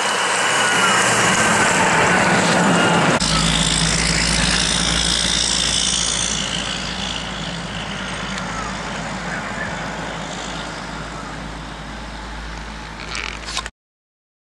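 Log truck's engine pulling up a hill: a steady, loud engine note, with a deep rumble joining about three seconds in. The sound gradually fades, then cuts off abruptly near the end.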